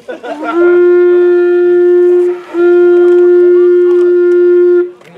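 Animal horn blown as a war horn: two long, steady, loud blasts on one note, the first opening with a short upward slide in pitch, with a brief break about two and a half seconds in.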